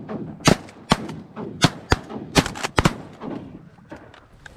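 Shotguns firing at ducks: about seven sharp shots in quick, uneven succession over the first three seconds, some too close together to come from one gun.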